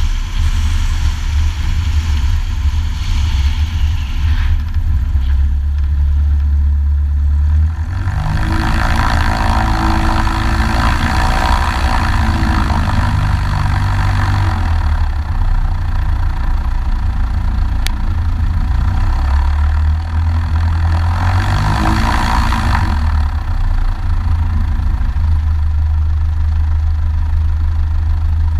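Single-engine light airplane's piston engine and propeller running steadily at low power, with the sound swelling as power is added from about eight seconds in for several seconds, and again briefly near the two-thirds mark.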